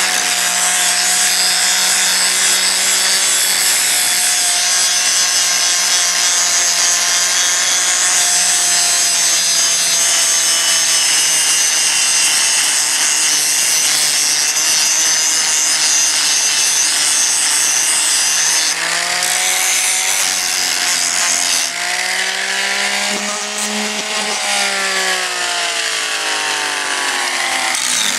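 Electric angle grinder grinding a rusty steel trailer frame down to bare metal for a welder's ground clamp: a steady high grinding hiss over the motor's whine. In the last third the motor's pitch dips and rises as it is pressed harder into the steel, then falls away near the end.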